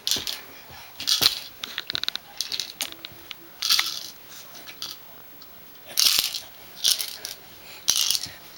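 Small hard objects clattering and rattling in irregular bursts, with a quick run of clicks about two seconds in.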